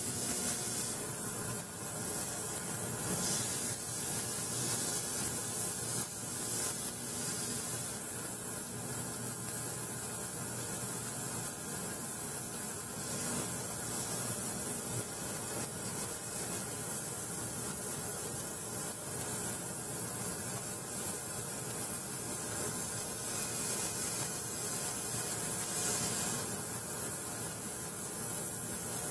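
Ultrasonic cleaner running with sharpening stones held in its tank of hot soapy water, a steady hiss with faint even tones in it, as the ultrasound shakes metal dust and ceramic grit off the stones.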